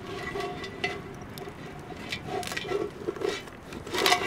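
King crab's hard, spiny shell and legs knocking and scraping against a cast-iron Dutch oven as the crab is lowered in and pressed into place. It makes a string of irregular clicks and clacks, loudest near the end.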